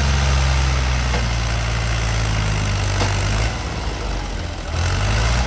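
Diesel farm tractor engines running steadily, easing off for about a second past the middle and then picking up again.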